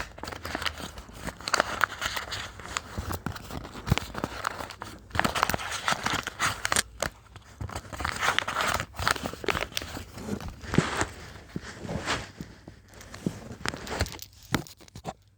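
Plastic blind-bag packaging crinkling and being torn open, a dense run of sharp crackles that stops abruptly near the end.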